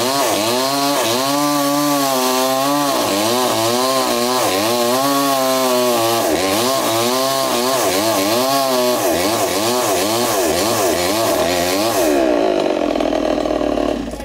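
Two-stroke chainsaw cutting into a coconut palm trunk, its engine pitch rising and falling over and over as the chain bites and frees in the wood. Near the end the revs settle and the sound drops away.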